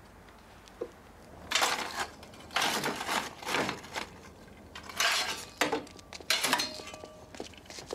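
Shovel scooping lump coal from a bin, the metal blade scraping and the lumps clattering, in several separate scoops about a second apart.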